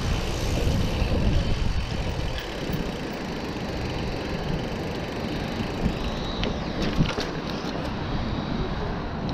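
Wind buffeting the microphone of a handlebar-mounted camera on a moving bicycle, a steady low rumble mixed with the sound of the tyres rolling on pavement. A few sharp clicks or rattles come about seven seconds in.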